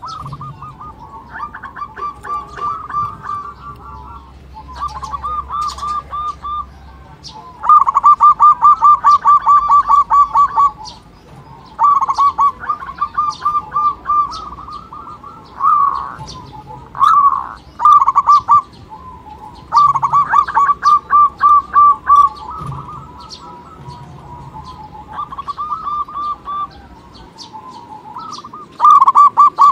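Local zebra dove (perkutut) cooing: repeated quick pulsing phrases of soft notes, each one to three seconds long, with short pauses between.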